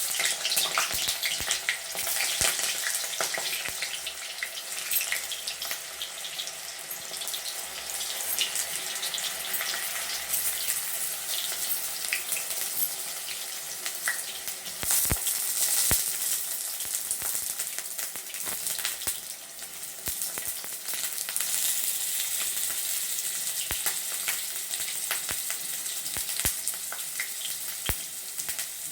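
Large brinjal (eggplant) pieces sizzling as they shallow-fry in hot mustard oil in a kadhai: a steady hiss full of small crackles and pops, growing louder for a few seconds at a time.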